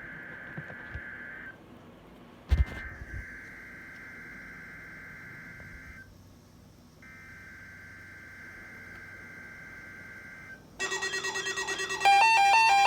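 Faint steady electronic tone from a weather radio receiver's dead air, broken by a brief thump about two and a half seconds in and a gap of about a second later on. Near the end a fast pulsing sound gives way to a loud beeping melody.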